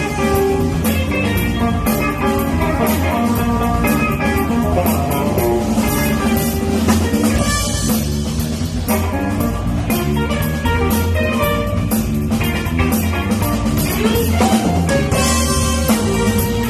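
A band playing an instrumental jazz-funk tune: electric guitar over a drum kit and a bass line, with a steady beat.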